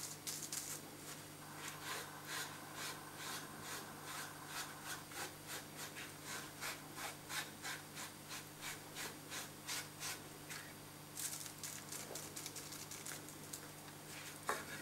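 Household sponge dabbing and rubbing acrylic paint onto a thin wooden card, in quick even strokes about two to three a second, with a denser scratchy flurry about eleven seconds in.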